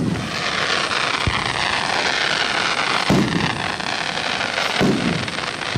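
Aerial fireworks shells bursting: one sharp bang right at the start, then three more about every one and a half to two seconds, the later two with a rumbling tail, over a steady hiss.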